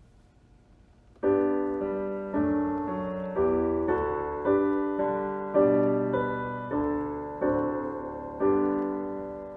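Piano playing a slow series of chords, about one a second, each struck and left to fade, starting just over a second in.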